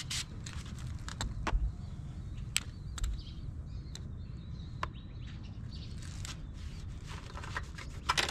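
A rag wiping and rubbing the truck cab's surface clean with glass cleaner, with scattered sharp clicks and taps. Birds chirp faintly in the background over a low, steady outdoor rumble.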